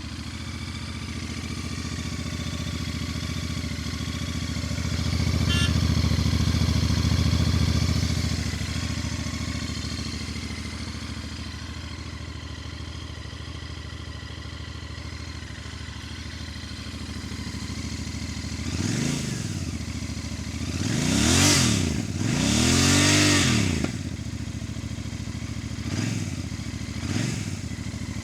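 Royal Enfield Bear 650's parallel-twin engine on its stock exhaust, idling steadily, held at higher revs for a few seconds, then blipped several times with quick rises and falls in pitch near the end.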